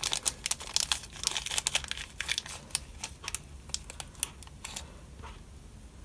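Small clear plastic bag crinkling as fingers rummage in it for thin shim washers. Many quick crackles, dense for the first three seconds or so, then sparser and quieter.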